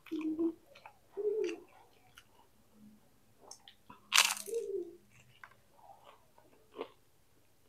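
Close-up eating sounds: a loud, sharp crunch of a bite into fried tempeh about four seconds in, with small wet chewing clicks throughout. Short hummed 'mm's come near the start and just after the bite.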